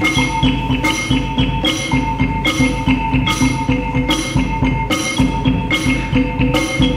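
Live percussion ensemble playing a steady, repeating pattern: ringing pitched notes over a busy low beat, with a sharp accented stroke about every 0.8 seconds.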